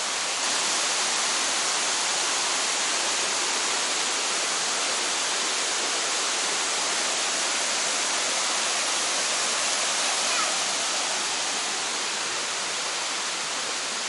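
Steady rush of water from small waterfall cascades pouring over rock ledges into a pool, an even hiss that eases slightly near the end.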